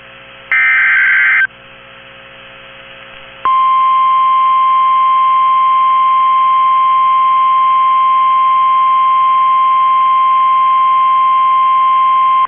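NOAA Weather Radio EAS alert: the last one-second burst of SAME digital header data, then about two seconds later the steady 1050 Hz warning alarm tone, held for about nine seconds before it cuts off. This signals that a severe thunderstorm warning is about to be read.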